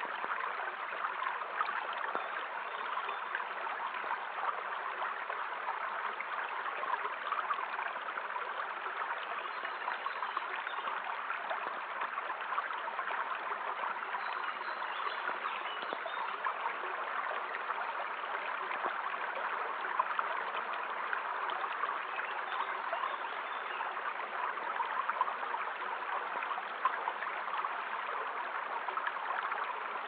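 Small forest stream flowing: a steady, even rush of running water.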